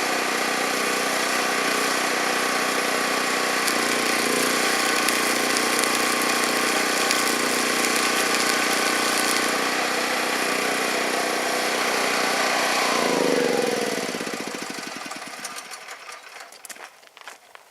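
Portable generator's small engine running steadily, then shut off about thirteen seconds in, its pitch falling as it winds down to a stop. A few faint taps follow near the end.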